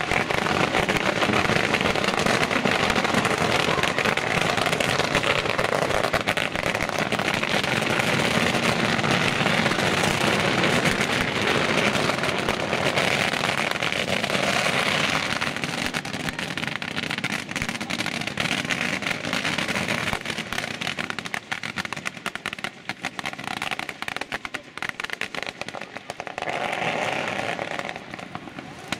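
Ground firework set piece spraying showers of sparks: a dense, continuous crackling hiss that thins out and grows quieter in the second half.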